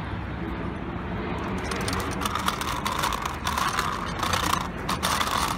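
A child's small bicycle rattling and clicking irregularly as it rolls along a pavement, over steady outdoor street noise; the clicking gets busier from about two seconds in.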